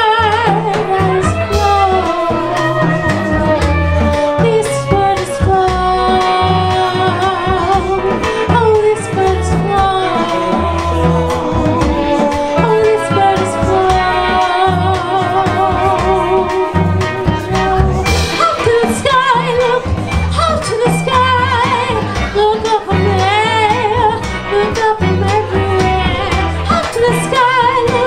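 Live band music: a woman sings a melody with vibrato over electric guitar, a drum kit and bass guitar.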